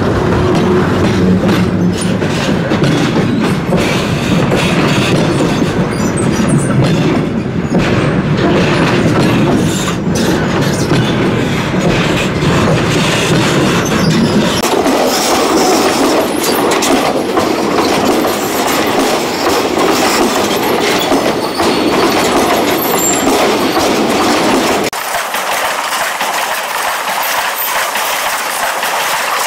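Railway wagons rolling directly over a microphone set between the rails: loud metallic wheel-on-rail noise with sharp knocks as the wheels pass. About halfway through the deep rumble drops away abruptly, and near the end the sound thins again to a lighter rail hiss.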